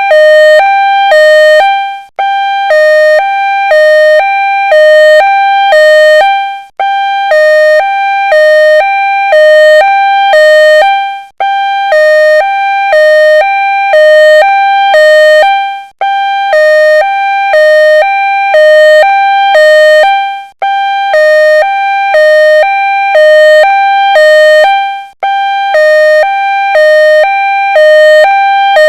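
Ambulance two-tone hi-lo siren wailing steadily, alternating between a higher and a lower note about every half second. The sound breaks off briefly about every four and a half seconds, as a looped recording.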